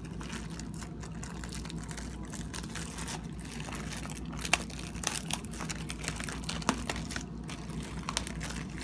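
Clear plastic pizza wrapping crinkling in short, scattered crackles as it is handled and pulled back from a pizza, over a low steady hum.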